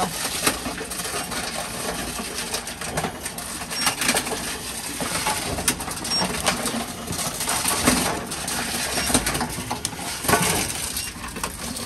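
Envipco ULTRA-48 reverse vending machine working on a container, with repeated clicks, knocks and clatter over a steady mechanical background. The container handling is struggling to take the container in.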